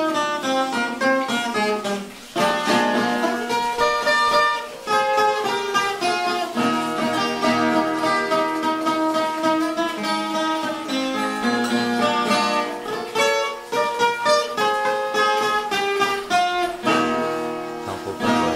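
Background music on acoustic guitar: a plucked melody of quick single notes and chords.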